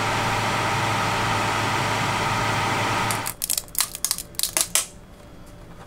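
Steady machine hum of a 3D printer running, a low hum under several higher steady tones, cutting off about three seconds in. Then a few sharp clicks and knocks as the plastic build tray and printed parts are handled.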